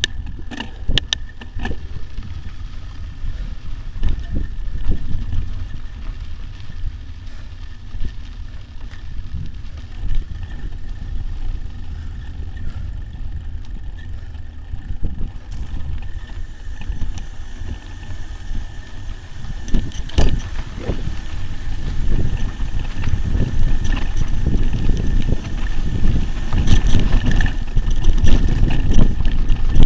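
Mountain bike riding a dirt singletrack: knobby tyres rumbling over the trail, wind buffeting the microphone, and scattered rattles and knocks from the bike over roots and stones. It grows louder in the last third.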